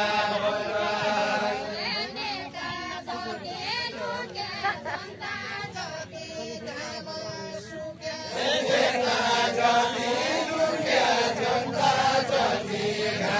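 A group of voices chanting a deuda folk song together in long held notes. The singing thins out about two seconds in and comes back fuller and louder about eight seconds in.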